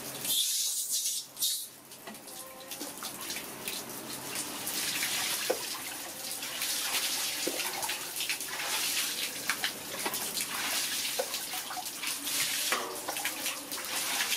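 Water scooped from a metal basin with a plastic dipper and poured and splashed over wet baby macaques, with drips and trickles throughout.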